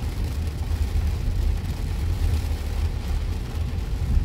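Steady low road rumble inside a car's cabin while driving on a wet highway, with an even hiss of rain and spray over it.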